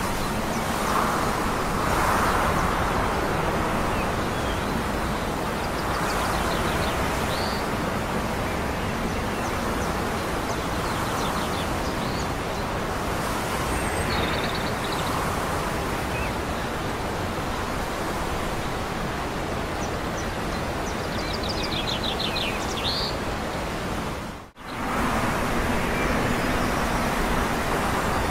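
Steady rushing outdoor noise of wind and distant traffic, with a few short high chirps scattered through it. The sound drops out for a moment about 24 seconds in, then the same noise carries on.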